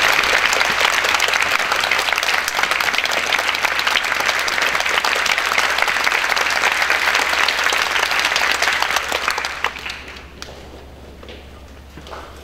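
Audience applauding, a dense steady clapping that dies away about ten seconds in, leaving a few scattered claps.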